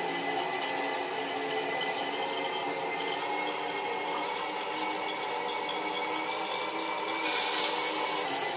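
Overhead shower spray coming on about seven seconds in and running as a steady hiss onto a lathered head of hair in a tiled shower stall. Before it, quieter sustained tones.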